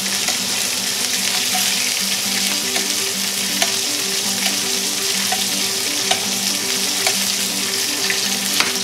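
Chicken breast sizzling steadily in hot oil in a skillet while being basted with a spoon, the spoon clicking against the pan now and then.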